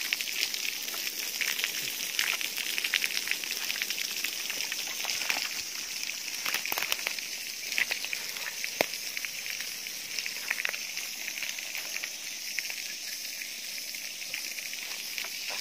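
Water spraying under pressure out of a leaking gravity-fed water supply pipe, a steady hiss with scattered crackles as the spray hits the ground and leaves. The leak is the fault behind the village's failing water supply.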